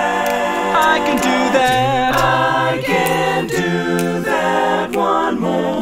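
Multi-tracked a cappella vocals by one singer: several layered voice parts singing changing chords over a low bass part, with no instruments.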